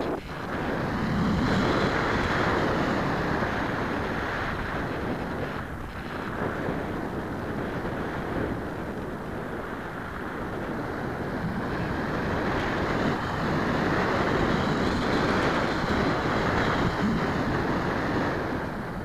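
Airflow rushing over the onboard camera's microphone on a model airplane in flight, swelling and easing as the plane manoeuvres. A faint high whine rises and falls above it.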